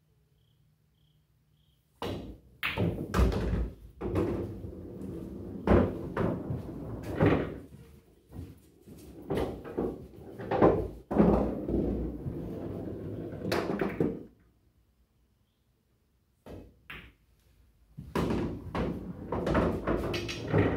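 Pool balls clacking and rumbling through a bar-box pool table's internal ball return, with repeated knocks over a continuous rolling rumble. It starts about two seconds in, runs for about twelve seconds, stops, and starts again shortly before the end.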